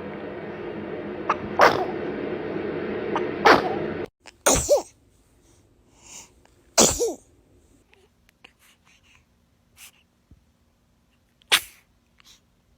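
Baby sneezes, about five short, sharp ones from separate clips. The first two come over a steady background noise that stops abruptly about four seconds in, and the rest sound against near-quiet.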